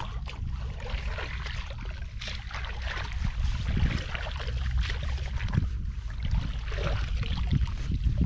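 Shallow water sloshing and splashing irregularly, over a steady low rumble.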